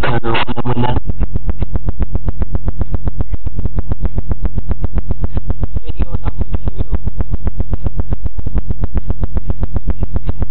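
A car stereo's subwoofer system playing a bass-heavy track very loud. About a second in it settles into one steady, deep bass note.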